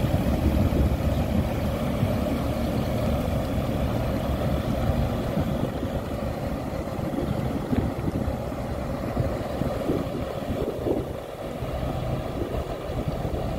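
Boat engine running steadily, a low rumble with water rushing past the hull.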